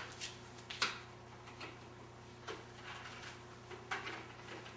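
A few light clicks and knocks of a cam-lock fitting being slipped onto its pins and turned with a Phillips screwdriver, the clearest about a second in, over a faint steady hum.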